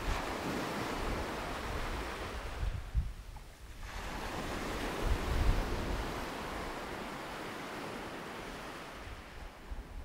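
Small sea waves breaking close by and washing up and back over the sand, with a brief lull about three seconds in. Wind buffets the microphone in low gusts.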